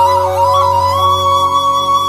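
Background music: a flute-like melody over a steady drone, wavering at first and then holding one long note from about a second in.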